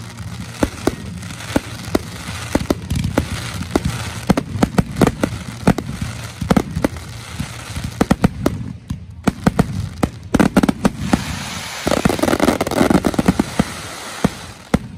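Fireworks finale: a rapid barrage of aerial shells launching and bursting, with booms coming several a second, a brief lull a little before halfway through, and a dense crackling wash from crackle stars in the last few seconds.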